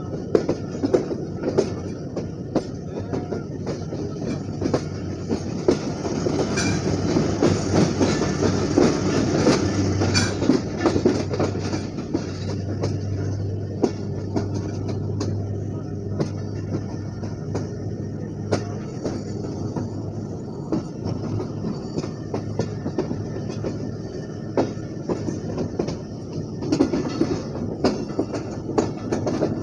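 GE U20C diesel-electric locomotive running as it pulls a train, a steady low engine hum with the wheels clicking irregularly over rail joints and points.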